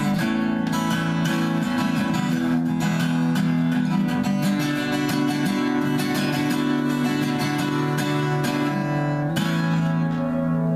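Acoustic guitar strummed steadily in chords, with no singing. About nine seconds in, a strong strum is left to ring.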